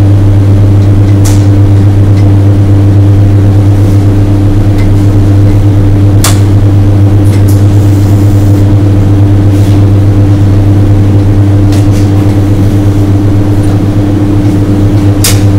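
TIG welding arc on Hastelloy pipe at about 93 amps, buzzing with a steady, unchanging hum. A few sharp clicks come through, about a second in, near the middle and near the end.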